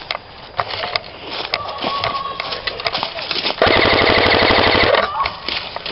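Airsoft guns firing during a charge: scattered single sharp cracks, then about three and a half seconds in a close full-auto burst from an airsoft rifle lasting about a second and a half, rapid and evenly spaced.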